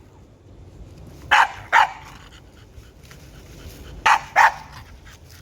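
A dog barking: two quick barks, then two more about three seconds later.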